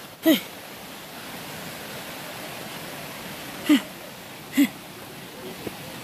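Steady rushing hiss of falling water from the waterfall. A person's short vocal exclamations cut through it three times, each falling in pitch, about a third of a second, three and a half, and four and a half seconds in.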